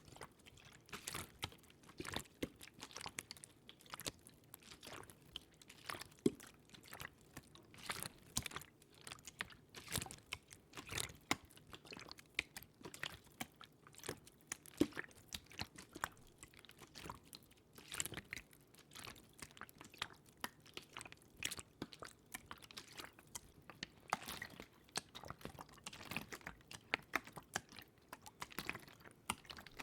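Close-miked ASMR water sounds: dense, irregular wet clicks and crackles with no rhythm.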